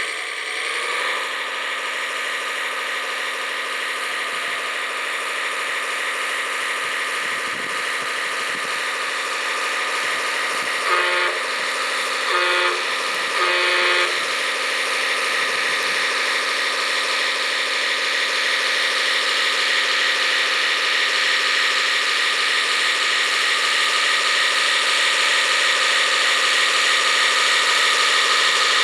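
Radio-controlled scale truck running steadily, its engine sound thin and lacking bass, with three short horn blasts about halfway through.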